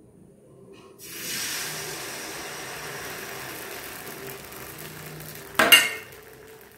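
Wheat-flour batter sizzling as it is ladled onto a hot, ghee-brushed appam pan. The sizzle starts about a second in and slowly fades, with a short clink of utensils near the end.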